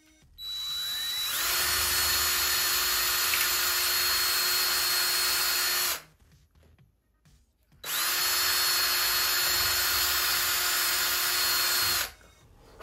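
Cordless drill run twice, each time spinning up with a rising whine to a steady speed and held there for about four to six seconds. It is boring a hole through the balsa wing leading edge for the wing dowel. The first run stops about six seconds in, and the second, after a short pause, stops near the end.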